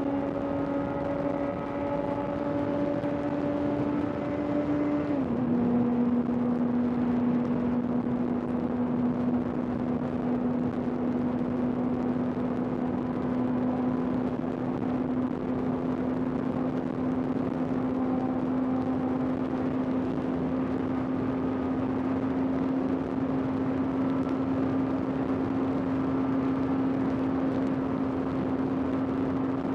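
Honda CBR650R's inline-four engine running at a steady cruise; its pitch steps down slightly and suddenly about five seconds in, then holds steady, over a constant rush of wind.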